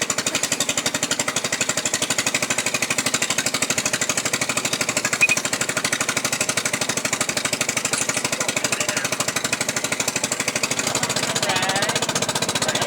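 A small engine running steadily with a rapid, even pulsing.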